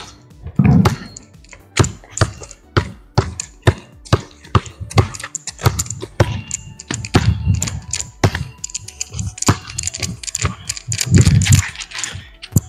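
Basketball dribbled on a concrete court: a run of sharp bounces about every half second, under background music.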